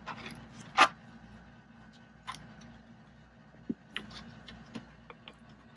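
Scattered clicks and knocks of hands handling a 3D-printed plastic antenna enclosure and fitting coax cable connectors into it, with one louder clack just under a second in and a few fainter ticks after.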